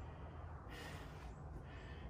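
A man breathing hard from the exertion of burpees: two breaths, one under a second in and one near the end, over a low steady hum.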